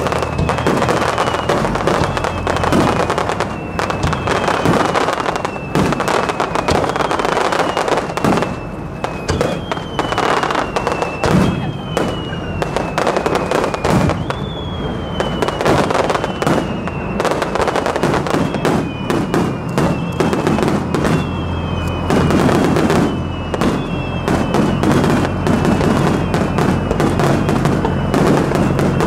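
Aerial fireworks display: a dense run of bangs and crackling bursts, with a string of short high whistles that fall slightly in pitch, one every second or two.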